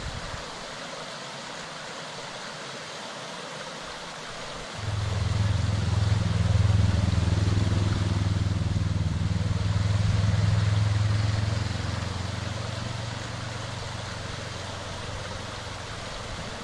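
Steady rush of a mountain stream. About five seconds in, a low, steady motor hum comes in suddenly and stays, loudest a few seconds later and then easing somewhat.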